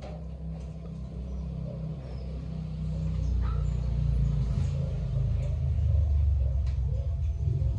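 Low engine rumble of a motor vehicle, growing louder about halfway through.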